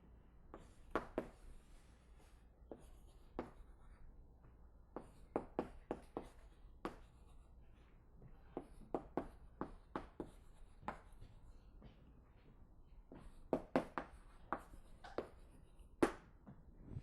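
Writing on a board: irregular sharp taps and strokes in clusters, with short pauses between them, over a faint low hum of the lecture room.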